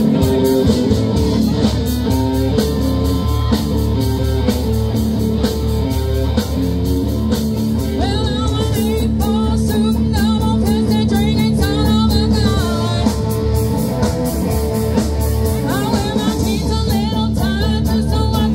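Live rock band playing through a PA: electric guitar, bass guitar and keyboards over a steady drum beat. A singer comes in about eight seconds in and carries on singing over the band.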